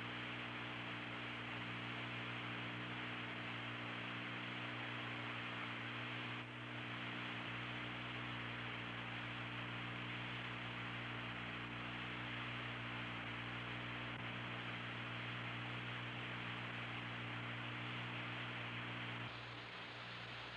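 Steady hiss over a low electrical mains hum: the noise floor of an open but silent mission control voice loop on an old recording. The hiss dips briefly about six seconds in and drops a little near the end.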